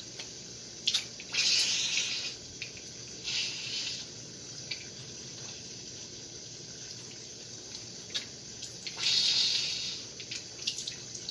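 Kitchen tap running steadily into a sink, while a man blows hard through the clogged gear unit of a Nelson tractor lawn sprinkler to clear out the dirt, in breathy bursts: a long one about a second in, a short one a little later, and another long one near the end.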